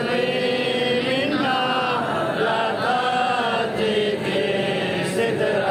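Men's voices chanting an Islamic devotional recitation in drawn-out melodic phrases, continuous and without a break.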